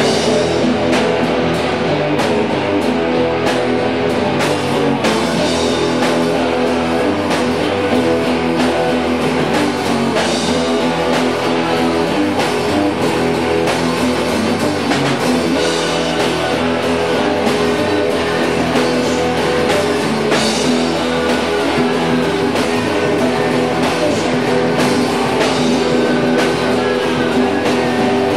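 Live band jamming a laid-back blues groove: electric guitars, bass guitar and drum kit playing steadily without a break.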